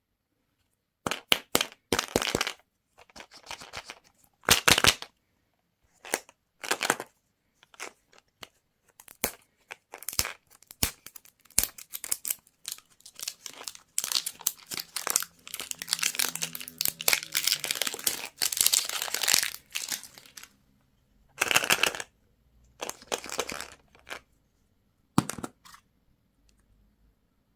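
Plastic candy wrappers crinkling and tearing in short bursts, with a longer stretch of continuous crinkling about halfway through.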